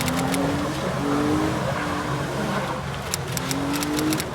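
Off-road 4x4 engine revving in repeated rising surges, about one a second, over a steady hiss of tyre and mud noise, as it works up a steep muddy climb.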